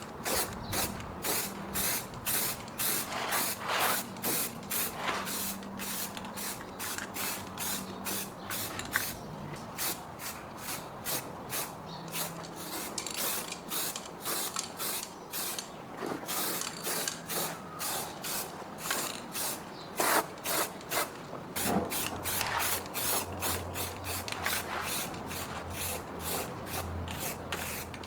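Rhythmic rasping back-and-forth strokes, about two to three a second, typical of hand scrubbing or rubbing down a surface. A faint low hum runs under it.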